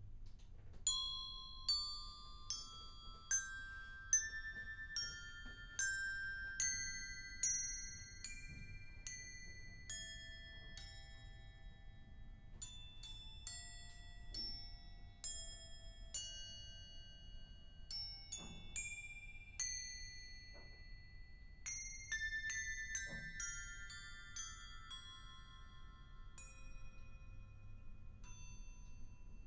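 Glockenspiel playing: single struck metal-bar notes that ring on. First a slow line of strokes climbing in pitch about one a second, then quicker, denser notes over a wider range. A few soft low thumps sit under it.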